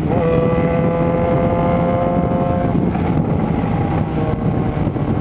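Yamaha XJ6N's inline-four engine through a Power GP2 4x1 full exhaust, ridden at a steady pitch that climbs slowly, then eases off a little under three seconds in, over steady wind rush.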